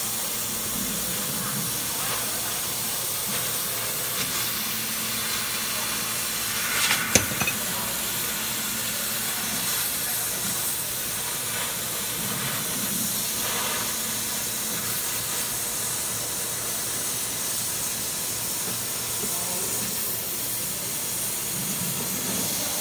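2200 W fiber laser cutting machine cutting steel sheet: a steady hiss from the cutting head as it burns through the plate, with one sharp click about seven seconds in.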